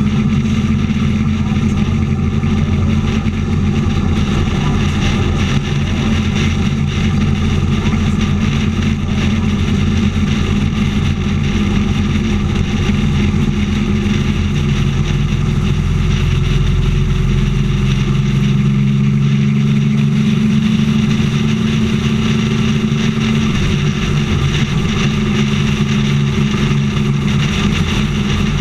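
Motorcycle engine running steadily at highway cruising speed, mixed with wind and road rush on the bike-mounted microphone.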